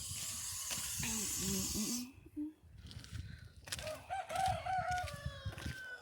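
Water running from a hose cuts off about two seconds in as it is turned off. Then a rooster crows once, a call of about two seconds, wavering at the start and then held with a slow fall.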